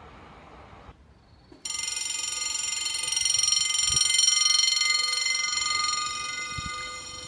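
French level-crossing warning bell, starting suddenly about one and a half seconds in and ringing on as a loud, high, steady electronic ring: the crossing's signal that a train is approaching. Before it comes a second of faint train noise and a short hush.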